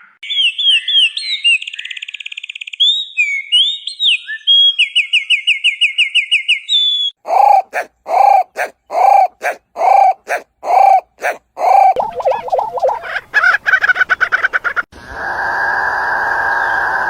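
Loud bird calls in a run of changing kinds: quick chirps and trills at first, then a series of repeated calls about two a second, then a faster series and a steady noisy call near the end.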